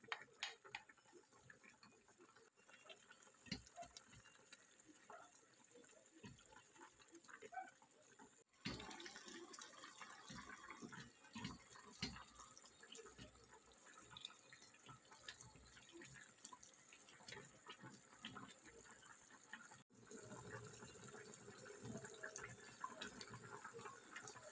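Faint bubbling of soup broth simmering in a pot, with scattered small pops and light taps of a wooden spoon stirring in moringa leaves. The bubbling grows a little louder after about eight seconds.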